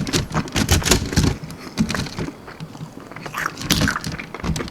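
Close-miked chewing of a crunchy almond-flour-breaded chicken wing: crisp crackles of the breading in quick clusters between bites, easing off for a moment about two seconds in.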